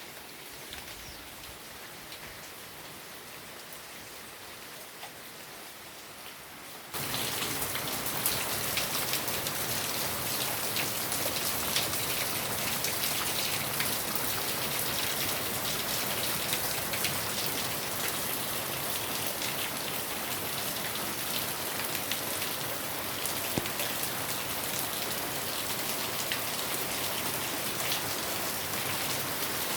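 Steady rain falling, with scattered drops pattering. About seven seconds in it suddenly becomes louder and then stays at that level.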